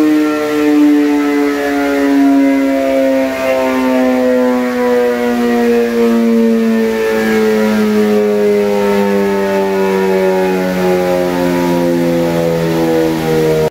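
2016 Suzuki GSX-R 750's inline-four engine, breathing through an M4 slip-on exhaust with a cat-delete mid-pipe, winding down on a chassis dyno at the end of a run. Its note falls slowly and steadily in pitch.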